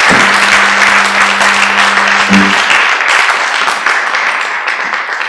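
Audience applauding: a dense patter of many hands clapping that slowly fades toward the end. A low steady hum sounds underneath for about the first half.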